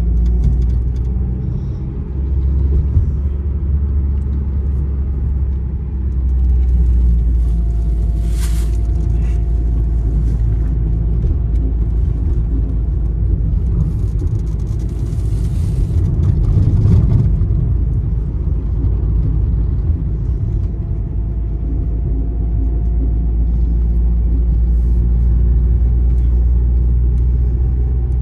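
Steady low rumble of a car's engine and tyres on the road, heard from inside the cabin while driving, with a faint steady whine and a brief hiss about eight seconds in and again around fifteen seconds.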